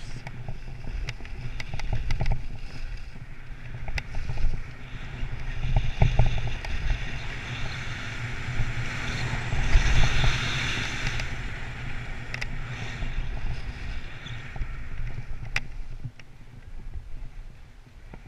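Skis running down a groomed piste: a steady hiss and scrape of ski edges on snow, with low wind rumble on the camera's microphone. It is loudest about ten seconds in and eases off near the end.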